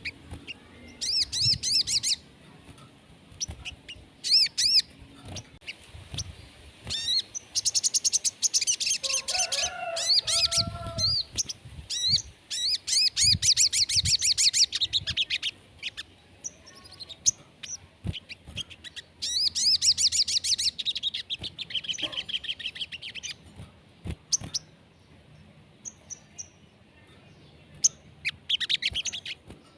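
Sogon (crested jay) calling in repeated bursts of fast, rattling high trills, each a second or two long with pauses between, and a lower call about ten seconds in.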